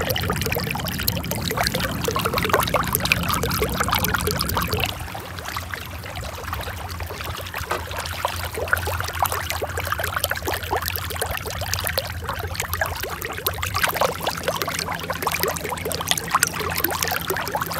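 Water pouring and splashing over a steady low hum, louder for about the first five seconds.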